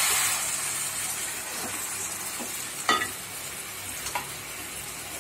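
Raw chicken sizzling in hot groundnut oil and masala in a metal pot, the sizzle dying down over the first couple of seconds as the meat cools the oil, while a spatula stirs it with a few light knocks and one sharp clink against the pot about three seconds in.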